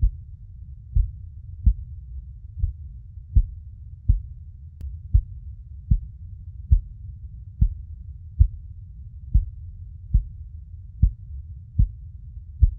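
Heartbeat sound for soothing a baby to sleep: low thumps about once every 0.8 seconds, some 75 beats a minute, over a steady low rumble.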